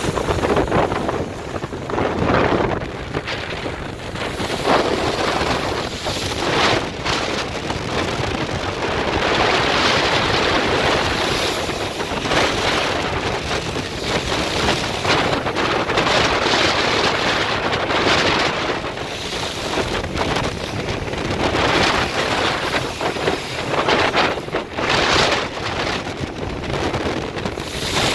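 Strong gusting wind buffeting the microphone over rough seas rushing and breaking along a ship's hull. It swells and eases in surges every few seconds.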